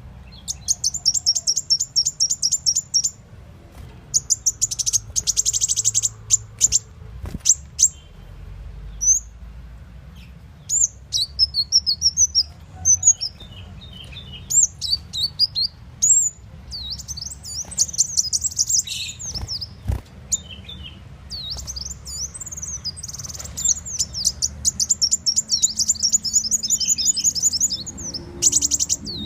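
Muncang (kolibri wulung) sunbird song used as a lure call: rapid, high-pitched buzzy trills and sharp chattering notes in repeated bursts with short pauses between them.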